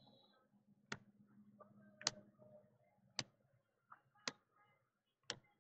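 Faint sharp clicks about once a second as Topps baseball trading cards are flipped one at a time off the front of a stack, with soft card-on-card sliding between them.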